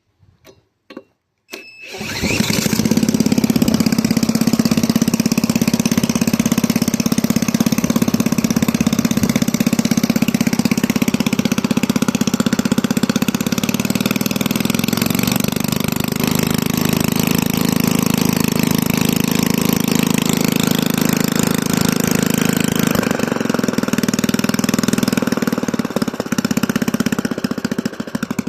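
Toro walk-behind lawn mower engine, newly reassembled with a rebuilt carburetor and straightened governor linkage, pull-started: a few short starter pulls, then it catches and runs steadily at speed. It drops back in speed just before the end.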